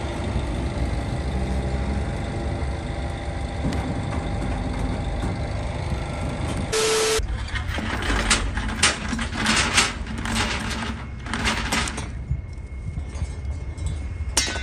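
Forklift engine running steadily. From about seven seconds in, steel load chains rattle and clank as they are thrown over and pulled around wooden cable reels.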